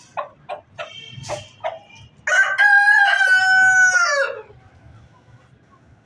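Aseel rooster crowing: one loud crow of about two seconds, held level and dropping in pitch at its end. It is preceded by a run of short, quick clucks.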